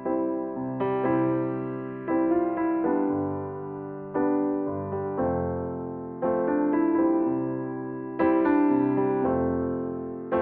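Background music: slow piano or electric-piano chords, struck about every two seconds and left to fade.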